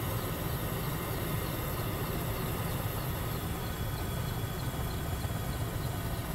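Helicopter engine and rotor noise heard from inside the aircraft: a steady drone with a strong low hum.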